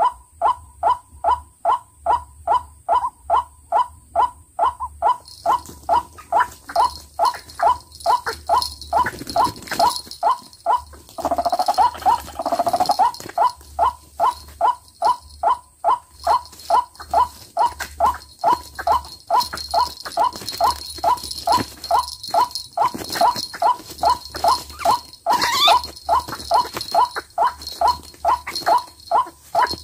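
White-breasted waterhen calls repeating loudly and evenly, about two and a half a second: the lure call used to draw waterhens to the snares. About eleven seconds in, a louder, wavering call cuts in for a couple of seconds.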